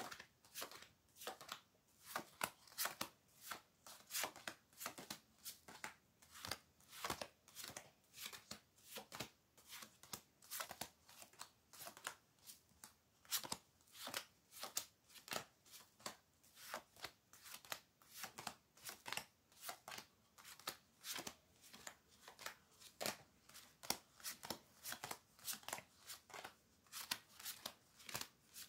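Tarot cards being dealt one after another from the deck onto a cloth-covered table: a long, uneven run of short crisp card snaps and slaps, roughly two to three a second.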